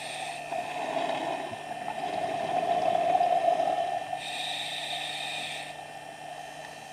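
Scuba regulator breathing underwater: a hiss of inhalation about four seconds in, and a louder bubbling rush of exhaled air in the seconds before it, over a steady hum.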